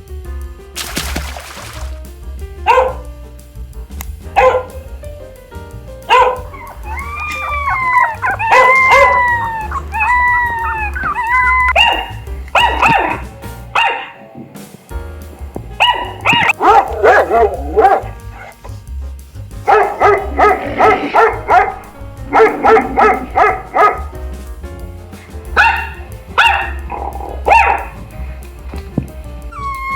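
Dogs barking and yipping, with drawn-out rising-and-falling calls, over background music. The sound breaks off briefly about halfway through.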